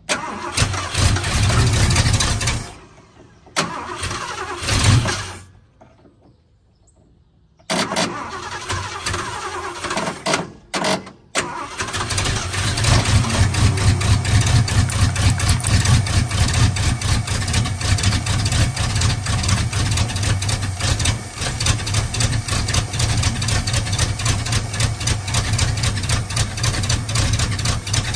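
1979 Ford F350's 400M small-block V8 being started: it cranks and fires in several short bursts that die out between tries, then catches about twelve seconds in and keeps running steadily.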